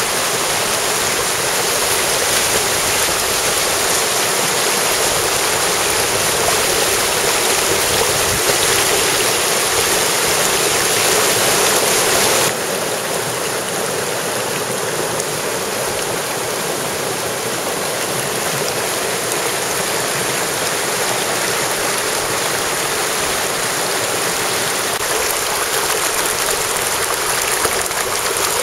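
Mountain stream water rushing in a steady, dense wash, stepping down a little in loudness suddenly about twelve seconds in.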